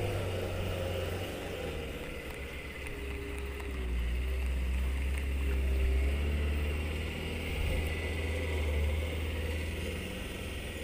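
Dump truck's engine running as it drives along the far bank, with a low rumble and a wavering pitch, loudest around the middle and easing off toward the end.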